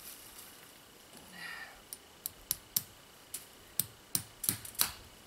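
Hammer tapping a nail to fasten the bottom of a chain-link fence: sharp, light strikes, a few scattered ones from about two seconds in, then a steady run of about three a second.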